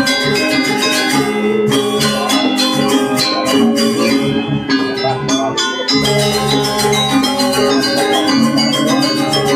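Balinese gamelan playing the Rejang dance accompaniment: bronze metallophones struck in fast, dense runs of bell-like notes over a steady pulse, with a deep gong stroke about six seconds in.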